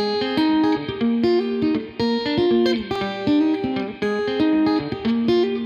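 Acoustic guitar picking a repeating melodic intro riff, the phrase coming round about once a second.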